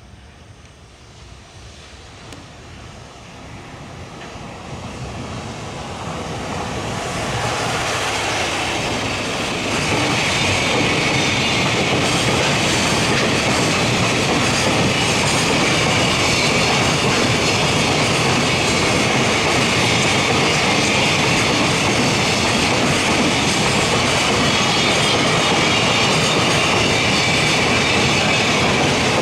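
JR Freight freight train approaching, growing steadily louder over the first ten seconds or so, then passing close by with the loud, steady wheel-on-rail noise of its wagons.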